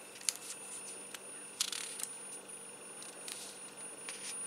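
Glossy catalogue pages crinkling and clicking under fingers in a few short strokes, over a faint steady high-pitched electronic whine, a recording glitch.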